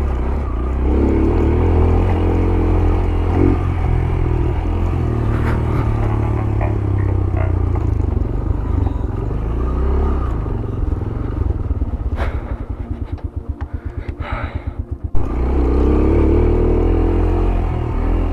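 Yamaha YBR 125G's 125 cc single-cylinder four-stroke engine running on a rough off-road descent, with light clattering from the bike. About twelve seconds in it drops to a low, evenly pulsing idle for a few seconds, then a sharp knock and the engine picks up again.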